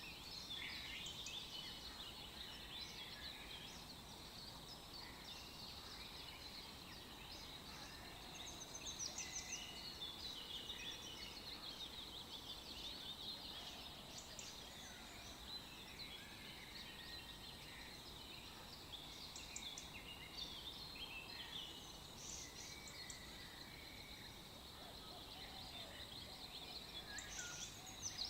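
Many small birds chirping and twittering continuously, with a faint steady high tone underneath.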